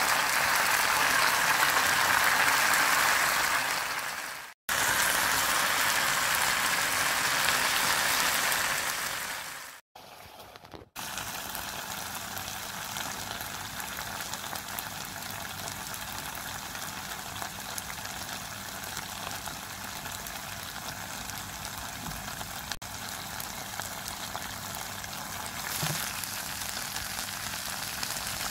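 Rice simmering in broth in a frying pan over high heat, with a steady bubbling sizzle. It is louder in the first half, cuts out briefly twice near the middle, and then goes on quieter.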